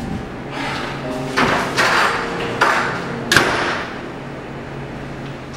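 A door being pushed open and then shutting with a sharp bang about three and a half seconds in, the bang ringing briefly, over a steady low hum.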